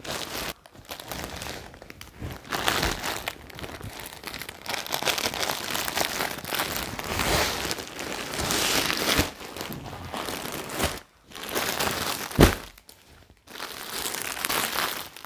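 Plastic carry bag and plastic-wrapped clothes crinkling and rustling irregularly as the clothes are pulled out and handled, with one sharp knock about twelve seconds in.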